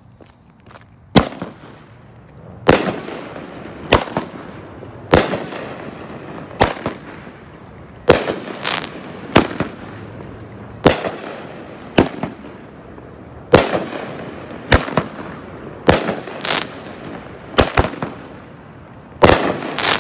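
Legend 'Bumble Bee' 500 g eight-shot firework cake firing: a string of sharp bangs, each with a short echoing tail. The first comes about a second in, then roughly one a second, some in quick pairs.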